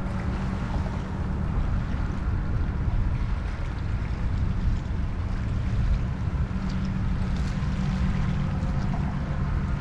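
Wind buffeting the microphone as a steady low rumble, with a constant low hum underneath.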